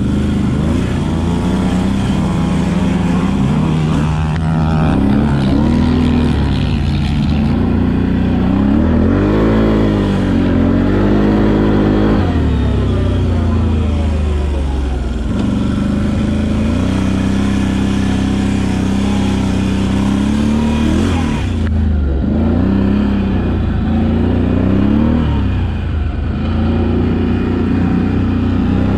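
Can-Am sport quad's engine under way, revving up and falling back again and again as the throttle is opened and let off.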